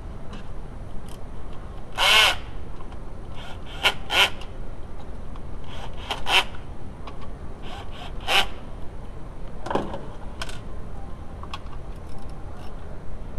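Hand tools and fan parts being handled on a metal workbench while working on a radiator fan assembly: a string of short clicks and clanks, the loudest about two seconds in, over a steady low hum.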